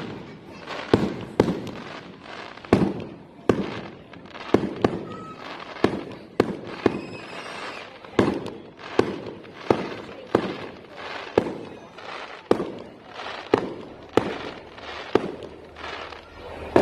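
Fireworks going off: a long, irregular run of sharp bangs, about one to two a second, each dying away with an echoing tail. A brief whistle is heard about seven seconds in.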